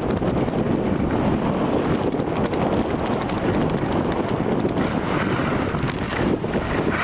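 Wind rushing over the microphone of a camera carried by a skier going downhill, mixed with the hiss and scrape of skis on snow. The noise grows brighter and more scraping from about five seconds in.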